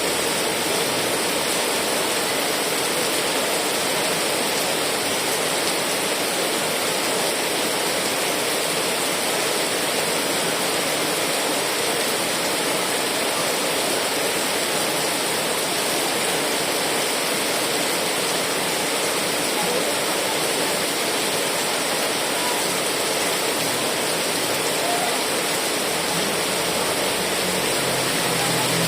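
Heavy rain falling steadily, a dense even hiss with no breaks. A faint low hum comes in near the end.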